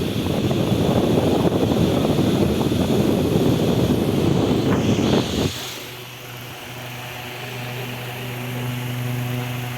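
Electric fan running: for about the first five seconds its air flutters loudly against the microphone, then the sound suddenly drops to a quieter, steady motor hum.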